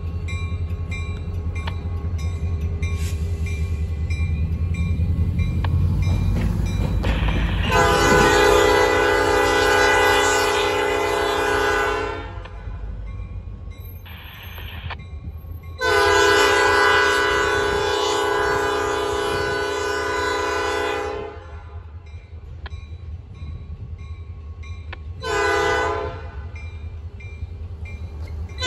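Norfolk Southern diesel locomotive sounding its multi-chime air horn in the grade-crossing pattern: two long blasts, then a short one, then another long one starting at the very end. Under the horn is the low rumble of the diesel engine.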